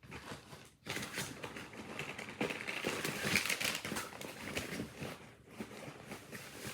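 Heavy-duty plastic Ziploc bags crinkling and rustling as they are handled, a dense run of small crackles that is loudest about halfway through.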